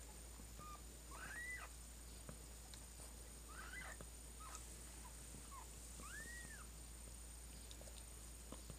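Newborn kitten mewing: short, thin, high-pitched cries, three louder ones a couple of seconds apart with weaker squeaks between, faint overall.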